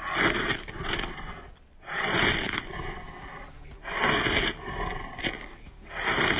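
The spine of a Bahco Laplander folding saw, freshly filed to a sharp 90-degree edge, is scraped hard down a ferrocerium rod to strike sparks. Four harsh rasping strokes come about two seconds apart, each starting loud and trailing off, the last beginning near the end.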